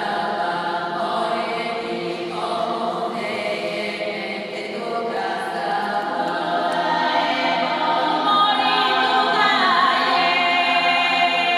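Bulgarian women's folk choir singing unaccompanied, several voices holding long notes together in chords. The sound swells louder about eight seconds in, and one voice slides downward shortly before the end.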